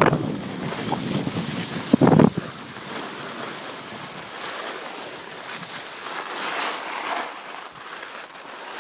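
Wind buffeting the microphone of a camera moving down a ski slope, a steady rushing hiss with a short louder burst about two seconds in.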